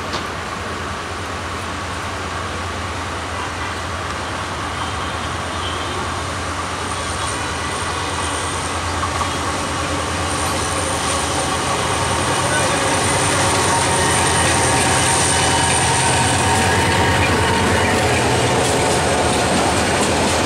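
Meter-gauge diesel-electric locomotive running with a steady low hum as it hauls a passenger train, growing steadily louder as it approaches and draws past, with the carriages rolling by on the rails. A faint high whine sits above it through the middle.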